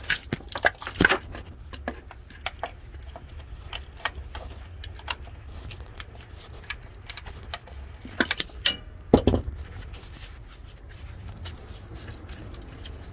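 Hand ratchet working a bolt loose on the truck engine's crankcase filter housing: irregular metallic clicks and clanks of the tool against the bolt and block, busiest about a second in and again around eight to nine seconds in. A steady low rumble runs underneath.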